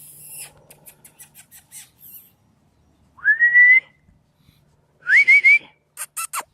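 A person whistling to call young bully pups: a run of quick clicks, then a rising whistle held for about half a second, then a second rising whistle with a quick three-step warble, and a short falling whistle near the end.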